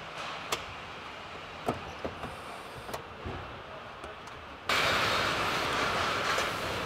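Car assembly hall ambience: a steady background with scattered short clicks and knocks. About two-thirds of the way in it cuts abruptly to a louder, even hiss-like noise.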